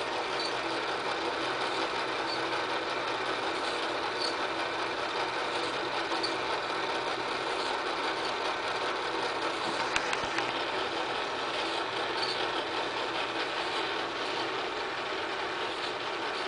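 Film projector running, with a steady motor whir and the clatter of film being pulled through the gate. A faint high tick comes about every two seconds, and there is one sharper click about ten seconds in.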